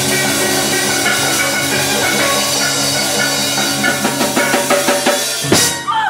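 Live steel band music: steel pans playing over a Yamaha drum kit. From about four seconds in, a run of quick drum hits builds to a loud final hit near the end.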